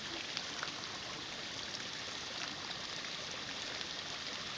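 Waterfall pouring into a rock pool: a steady rush of falling and splashing water.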